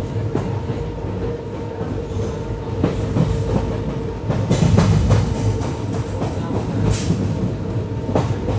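Passenger train running: a steady low rumble and hum, with sharp clicks of the wheels over rail joints several times.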